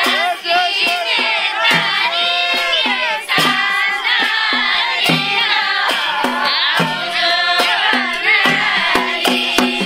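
Nepali folk song: voices singing over a hand-drum beat that strikes several times a second.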